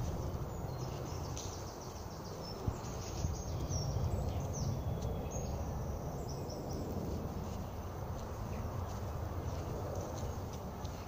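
Outdoor ambience: many short bird chirps, thickest in the first two-thirds, over a steady low rumble, with one short click a few seconds in.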